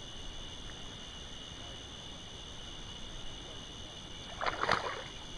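Crickets trilling steadily in a high, unbroken tone, with a short burst of noise about four and a half seconds in.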